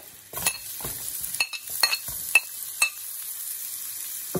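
Sliced red onion going into a hot pan of frying garlic and oil, sizzling, while a metal spoon scrapes it off a ceramic plate with several sharp clinks in the first three seconds.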